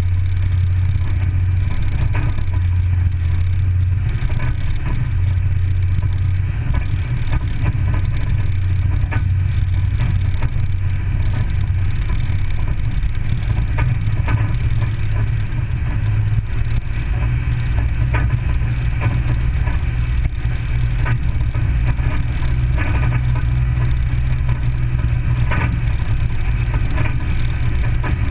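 Vehicle driving slowly along a gravel track: a steady low engine drone with scattered small knocks and rattles.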